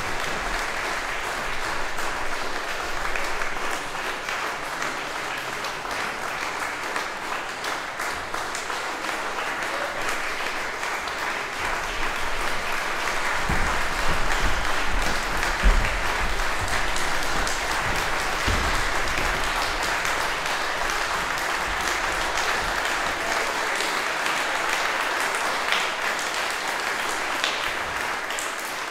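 Audience applauding with steady, dense clapping, with a couple of low thumps about halfway through.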